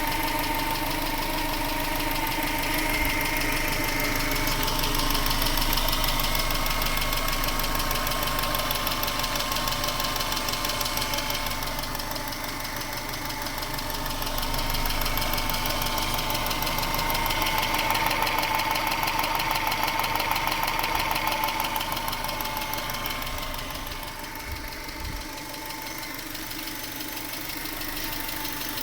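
A 1996 Subaru Legacy Outback's 2.2-litre EJ22E flat-four engine running steadily near idle, with a rapid, even ticking. The tick is the same on both sides, cold or hot. The owner suspects the noisy fuel injectors or valvetrain noise that Subarus are said to make.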